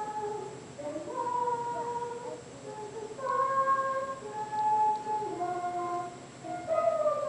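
A young girl's voice singing a slow melody of held notes, with a concert flute playing alongside.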